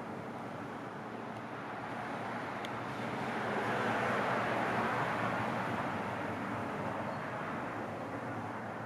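A vehicle passing by: a steady rushing noise that builds to its loudest about four to five seconds in, then slowly fades.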